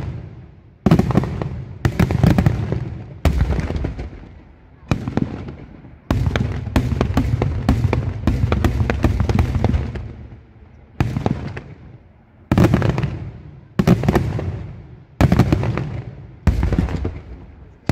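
Daylight aerial firework shells bursting high overhead. There is a sharp bang every second or so, each trailing off in a rolling echo, with a quick run of many bangs in the middle.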